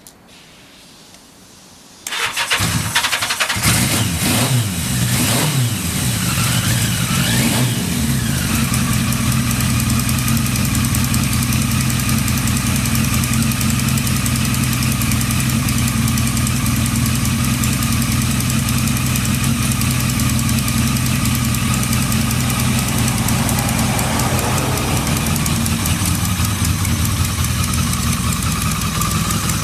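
Yamaha XJ750E motorcycle's inline-four engine started on the electric starter, catching at once about two seconds in. Its revs rise and fall for a few seconds, then it settles into a steady idle with no abnormal noise.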